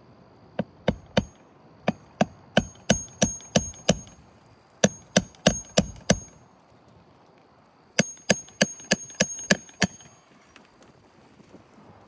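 A 16-ounce Craftsman hammer striking repeatedly in four bursts of quick blows, about three a second, each blow with a short metallic ring.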